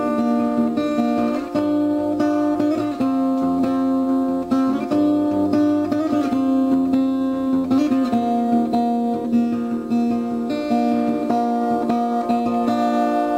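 Background music on acoustic guitar, plucked and strummed chords.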